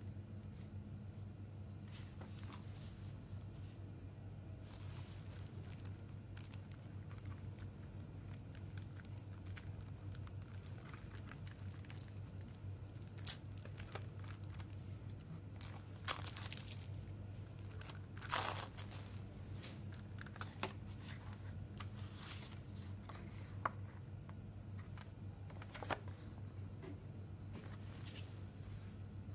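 Plastic shrink wrap being torn and peeled off a CD jewel case: crinkling rustles and scattered clicks, with a sharp snap a little past halfway and a longer rip soon after. A steady low hum runs underneath.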